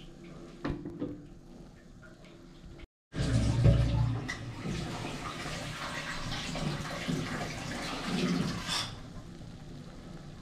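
Liquid with roselle boiling and bubbling in a pan, a rushing, bubbling water noise. It is faint with a couple of small knocks at first, jumps louder after a brief break about three seconds in, and eases near the end.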